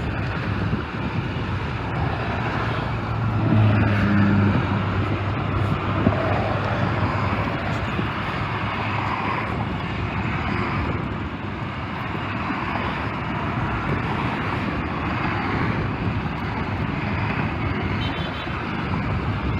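Steady noise of road traffic going past, with a low steady tone for about a second, some four seconds in.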